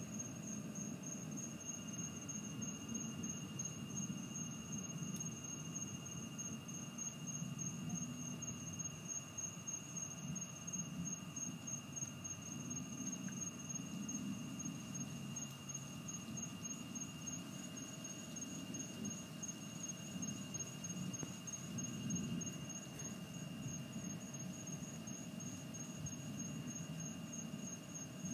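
Night insects trilling steadily: a continuous high-pitched, rapidly pulsing trill with a steadier lower whine beneath it, over a low, wavering rumble.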